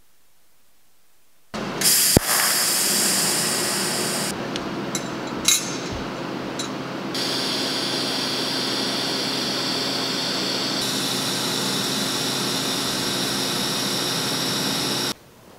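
TIG welding arc on stainless steel, a steady hiss and buzz. It starts abruptly about a second and a half in, with a sharp crack just after, and cuts off sharply near the end when the arc is broken.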